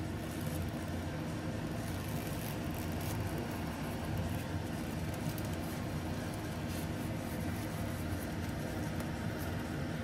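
Steady low machine-like hum, with faint light clicks and rustles from a bamboo mat being pressed and rolled around a kimbap roll.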